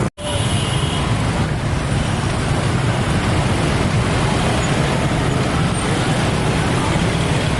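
Loud, steady rumble and road noise of heavy vehicles at a busy level crossing, starting right after a split-second dropout at the very beginning.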